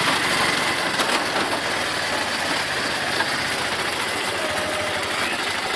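Auto rickshaw's small engine running with a fast, even chatter, heard from on board the open rickshaw.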